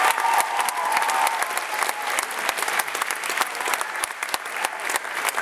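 An audience applauding steadily, with a cheer fading out in the first second.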